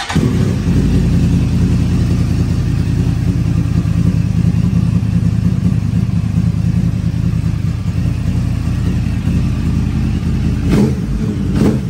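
A 2011 Yamaha R1's crossplane inline-four engine fires up and idles steadily, with two short blips near the end.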